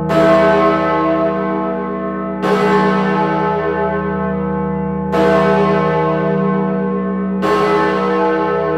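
Great George, the large bell in the Wills Memorial Building tower in Bristol, swinging and striking four times about every two and a half seconds. Each stroke rings on in a dense, long-lasting tone over a steady low hum, heard close up in the bell chamber.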